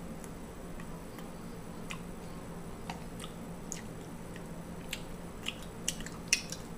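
A person chewing a mouthful of food: wet, squishy mouth sounds and small clicks, coming thicker and louder after about five seconds, over a steady low hum.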